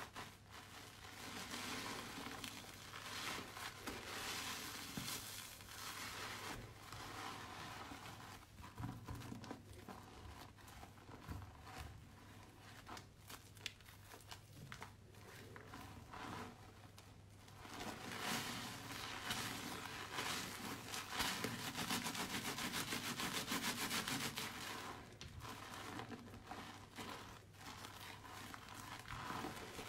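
Fingers squeezing and smearing soaked, mushy bar soap in a soap dish: wet crackling and crinkling, louder for several seconds past the middle, over a faint steady hum.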